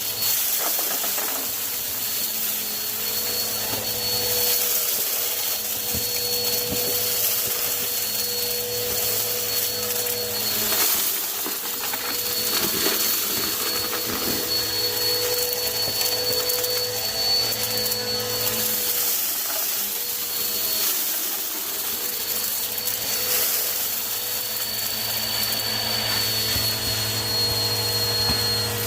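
Vacuum cleaner running steadily, its motor whine holding an even pitch, with occasional short clicks.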